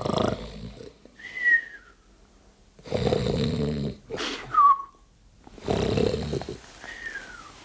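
A sleeping man snoring in a comic, exaggerated way. Each cycle is a rasping snore followed by a short whistle that slides down in pitch, three times in an even rhythm.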